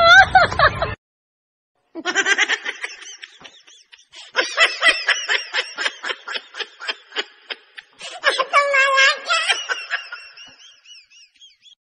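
A laughing sound effect: after a brief gap about a second in, a person giggles in quick bursts, several a second. About two thirds of the way in comes a longer held, wavering note, then thin, high wheezy tones that fade out.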